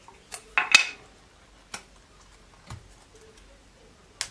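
Hands handling thin plastic strips cut from a milk bottle and a plastic project box on a wooden desk: a handful of short clicks and crinkles, the loudest a quick double click about three-quarters of a second in.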